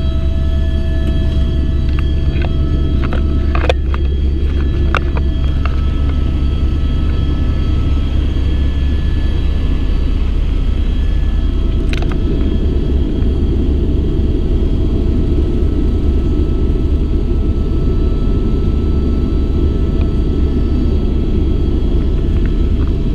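Helicopter in flight heard from inside the cabin: a loud, steady rotor and turbine drone with a deep rumble and several steady whining tones above it. A few brief clicks sound in the first seconds and once more about twelve seconds in.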